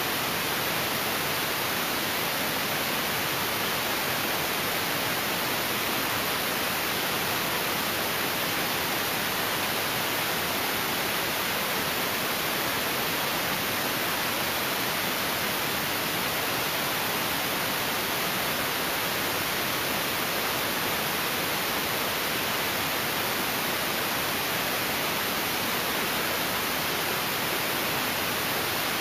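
Steady static hiss, even and unchanging throughout, with no distinct events, no rotor beat and no engine whine.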